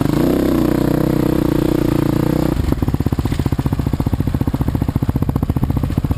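Dirt bike engine running under throttle, its pitch wavering up and down. About two and a half seconds in it drops off to a low, rapid, even pulsing.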